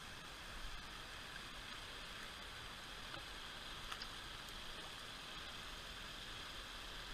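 Steady rush of a shallow mountain creek running over rocks, with a couple of faint ticks about four seconds in.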